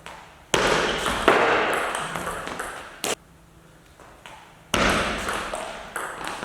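Table tennis ball clicking off bats and table in a rally, each hit followed by a fading ring. The sound stops about three seconds in and starts again near five seconds.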